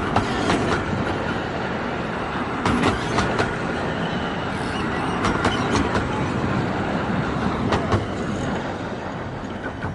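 A 15-inch gauge steam-hauled train rolling past with a steady rumble. Its wheels clack over the rail joints in groups of two or three clicks, every couple of seconds, and the sound eases slightly near the end.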